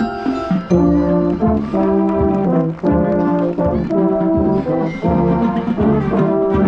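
Marching band brass section playing a series of short, loud accented chords over drum hits.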